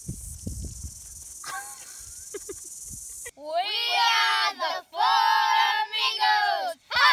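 Four children chanting together in loud, drawn-out shouts, beginning abruptly a little over three seconds in. Before that, a low rumble of wind on the microphone and a few faint voices.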